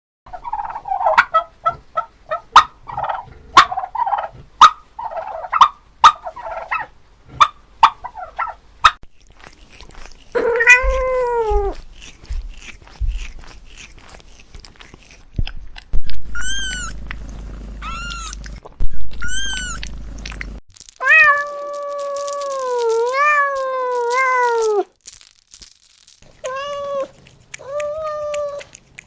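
Cats meowing: a choppy run of short sounds and sharp clicks, then separate meows, including three short high-pitched mews and one long wavering meow.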